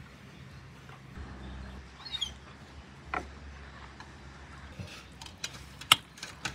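Several sharp metallic clinks near the end, the loudest about six seconds in, as a wire mesh skimmer knocks against the rim and side of a stainless steel pot while lifting boiled chicken out of the broth. A short high chirp comes about two seconds in.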